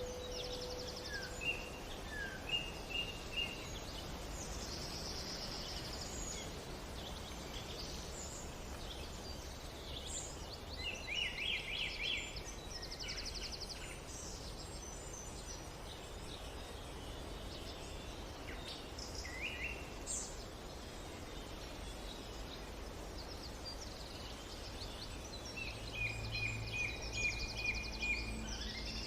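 Songbirds chirping and trilling in short, scattered phrases over a steady low rumble. A singing bowl's lingering tone fades out within the first second or so.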